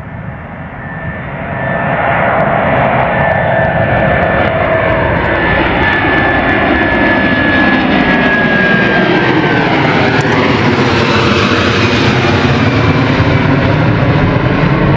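Airbus A330-300's Rolls-Royce Trent 700 turbofans at climb-out power as the airliner passes directly overhead: a loud, steady engine rumble that swells over the first two seconds, with a high whine that slides down in pitch as the plane goes over.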